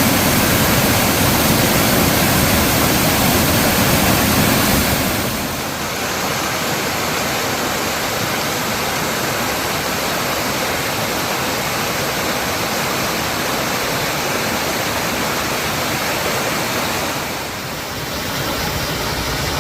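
Mountain stream water rushing over rocks, a steady even noise. It steps down a little about five seconds in and shifts again near the end, as from one stretch of water to another.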